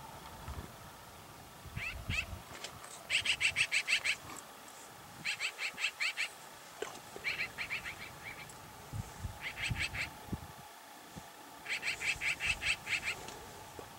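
A rapid pulsed call, about nine clicks a second, repeated in five or six bursts of up to a second each.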